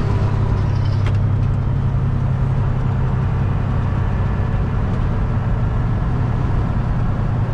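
Semi truck's diesel engine and road noise heard from inside the cab, running steadily under way in eighth low of a 13-speed manual, with a short click about a second in.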